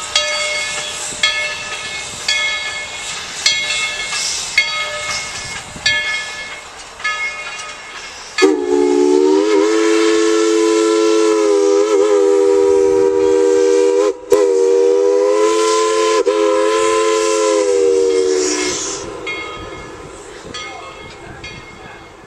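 Steam train running with sharp clicks about once a second. Then the locomotive's Crosby chime whistle sounds a chord of several notes in a long blast of about ten seconds, broken for an instant partway through. The sound fades as the train moves away.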